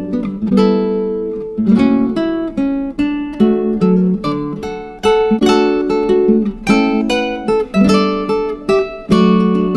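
Acoustic guitar music: plucked and strummed notes and chords, each starting sharply and fading away.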